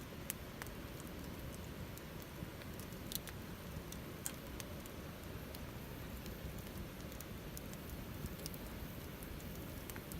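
Wood fire burning in a Picogrill fire stand, crackling with scattered sharp pops at irregular intervals over a steady low rush.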